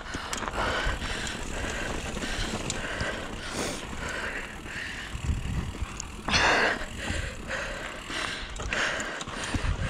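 Mountain bike ridden down a dirt trail: tyres running over dirt and rock, with the chain and frame rattling. About six seconds in there is a brief louder rush.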